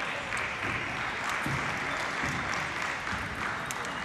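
Applause from spectators: an even patter of clapping that stops near the end, with a few faint knocks underneath.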